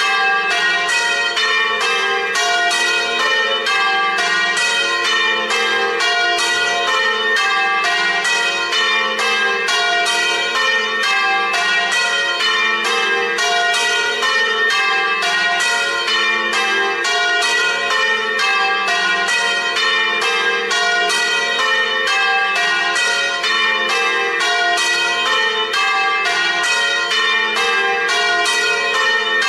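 Several church tower bells swinging in a full festive peal, striking one after another in a steady, unbroken run with their tones overlapping. This is the festive peal that calls the parish to Mass.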